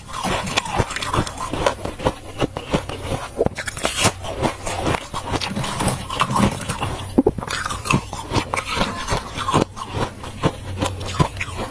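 Soft freezer frost crunching as it is scraped by hand from the freezer wall and handled: a dense, irregular run of crisp crackles and crunches.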